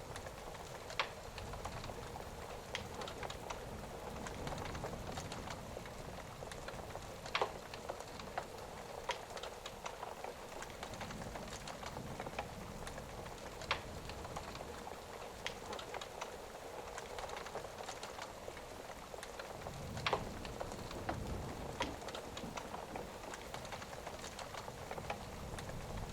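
Steady rain ambience, with sharp pops from a crackling fire every few seconds and a soft low rumble of thunder coming in about twenty seconds in.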